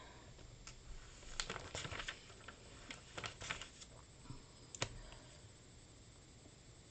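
Light clicks and taps in a few quick clusters, about a second and a half in and around three seconds in, with one sharper click near five seconds.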